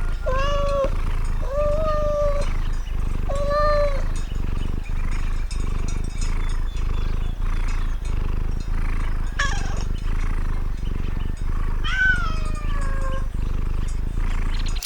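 Domestic cat meowing: three short meows in the first four seconds, then two more later, the last one longer and falling in pitch, over a steady low background hum.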